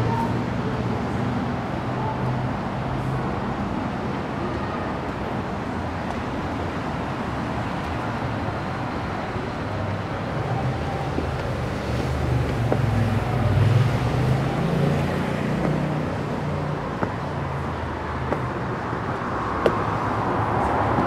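Steady road traffic noise from city streets, with engine rumble swelling as a vehicle passes about two-thirds of the way through.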